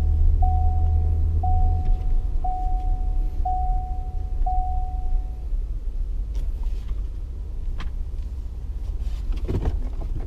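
Pickup truck cab: a low engine rumble that eases after about two seconds, with five short dashboard warning chimes at one pitch, about one a second. A few clicks near the end.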